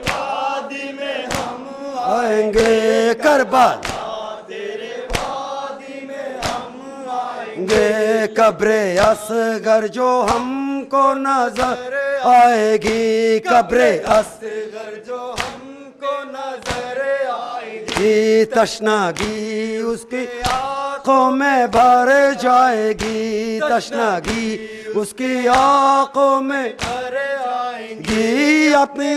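Men chanting a noha, a Muharram lament led by a reciter over a microphone, with the crowd joining in. Sharp rhythmic thumps about once a second run under the chant: hands beating on chests in matam.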